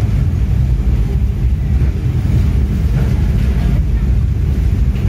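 Steady low rumble of a passenger train running along the line, heard from inside the carriage.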